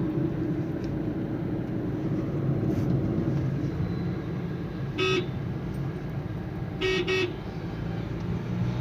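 Nissan Sunny driving with steady engine and road noise and no humming, the hum from its worn wheel bearing now gone. Short horn toots sound once about five seconds in and twice in quick succession about seven seconds in.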